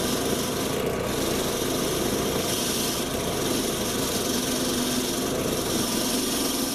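Electric power tool running steadily against the rusty steel head of an old ball-peen hammer, cleaning it down to bright metal.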